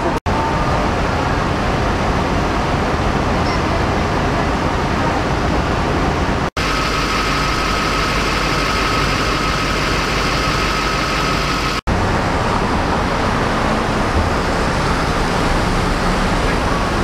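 Steady rumble of engines and traffic from idling emergency vehicles on a city street, broken by two brief dropouts. Partway through, a steady high-pitched hum joins the rumble for a few seconds.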